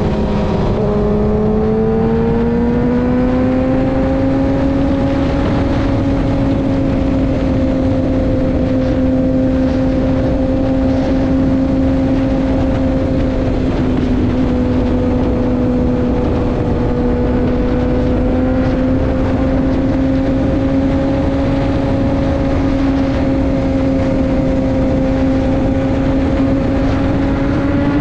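Sport motorcycle engine cruising at highway speed with rushing wind noise. The engine pitch dips briefly near the start, climbs over the next couple of seconds, then holds steady.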